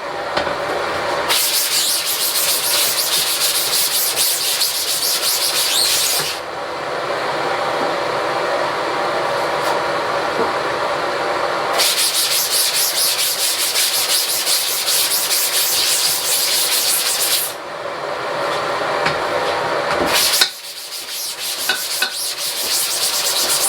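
Scrubbing a screen-printing screen with a brush or pad in strokes, loud and rasping, with brighter spells every few seconds.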